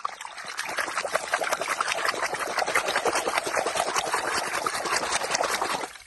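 Water spraying and splashing: a dense, crackling hiss that cuts off suddenly near the end.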